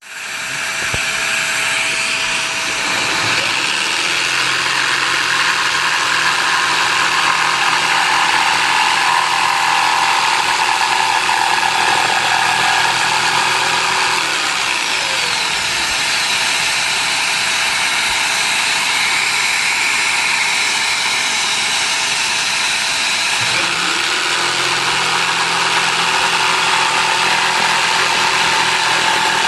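Electric jigsaw running steadily, its blade sawing through wood, with the motor's pitch shifting a little as the cut goes on.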